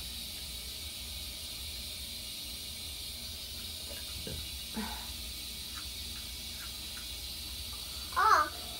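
A steady hiss with a few faint ticks, and a short vocal sound from a voice near the end.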